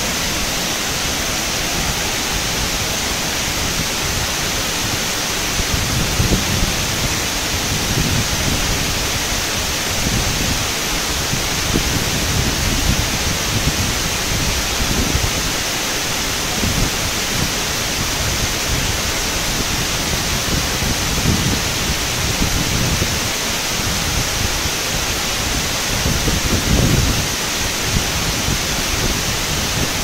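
Saluopa waterfall, a steady, loud rush of falling water with no break, with uneven low rumbles swelling now and then, strongest near the end.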